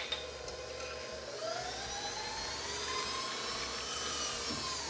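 Stand mixer with a whisk attachment running, beating butter into pastry cream: its motor whine rises in pitch as it speeds up over the first few seconds, holds, then falls as it slows near the end.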